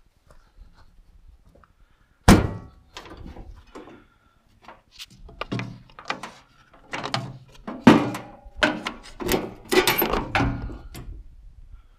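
A loud clunk about two seconds in, then an irregular string of knocks and clunks of varying loudness through the second half.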